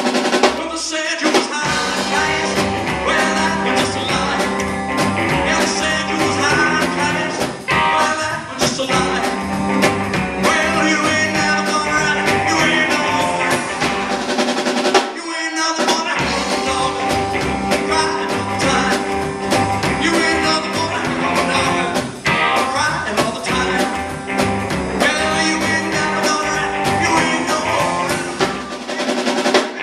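Live rock and roll band playing, with electric guitar, drum kit and upright bass, with a brief break about halfway through.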